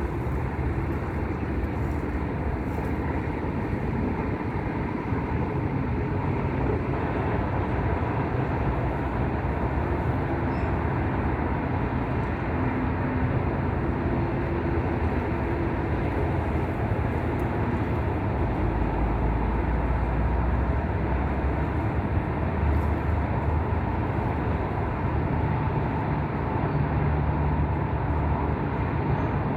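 Wind blowing across the microphone, a steady low rumble.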